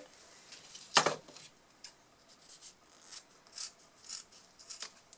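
Scissors cutting through a fabric bag-handle strap: one loud snip about a second in, then a run of fainter snips about every half second.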